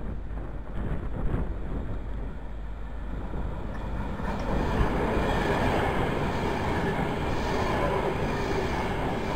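A Class 390 Pendolino electric train running in along the platform. Its running noise grows from a distant rumble to loud about four seconds in, and stays loud as the carriages pass close by.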